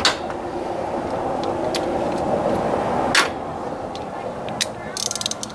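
Steady background noise with a few sharp single clicks, then a quick run of ratchet-wrench clicks near the end as a ratchet is worked on a bolt of the AC compressor's mounting bracket.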